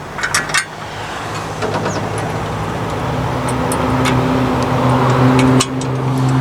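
A motor vehicle engine running steadily nearby and growing louder, with a few light metallic clicks about half a second in.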